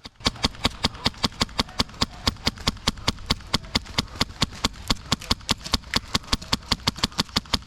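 An airsoft gun firing a steady string of shots, heard as sharp, evenly spaced cracks at about six a second.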